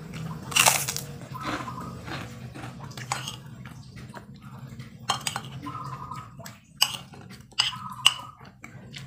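Eating from a ceramic plate with a metal spoon: a series of sharp clicks and scrapes of the spoon on the plate, the loudest about half a second in, with crunching and chewing of rice and crisp rice cracker, over a low steady hum.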